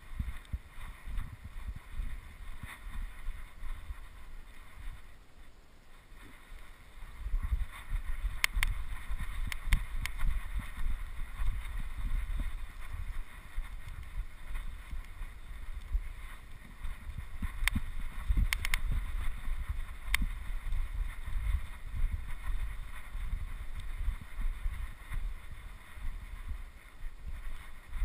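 Wind buffeting the microphone: an uneven low rumble that swells and fades, with a few sharp clicks.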